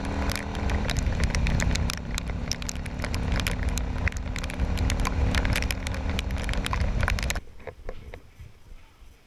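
Yamaha V Star cruiser's V-twin engine running on the highway in rain, with wind rush and a rapid crackle of raindrops hitting the mounted camera. About seven seconds in it cuts off abruptly to quiet indoor room tone with a few faint clicks.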